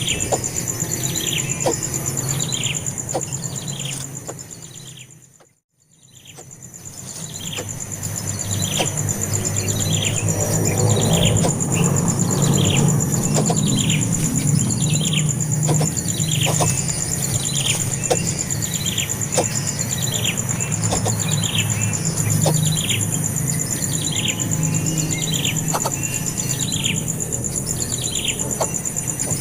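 Bird chirping in a steady series, a short downward-sliding note roughly every two-thirds of a second, over a continuous high-pitched buzz and a low hum. About five seconds in the sound fades out completely, then fades back up with the same chirping.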